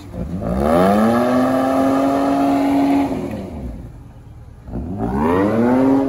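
An off-road vehicle's engine revs up and holds high for about two seconds, drops back, then revs up again near the end. The vehicle is bogged in soft ground that it keeps sinking into as it tries to drive out.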